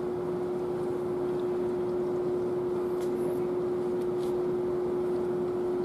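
Steady background drone of workshop room noise with one constant humming tone, and a couple of faint ticks.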